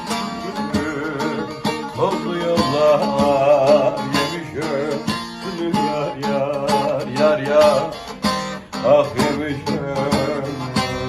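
Acoustic guitar plucked and strummed under a Turkish folk-style vocal line, the voice holding long wavering notes with vibrato rather than clear words, twice rising to louder held notes.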